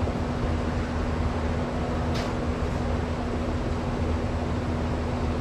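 Steady machine hum with a hiss over it, unchanging, with one brief faint high sound about two seconds in.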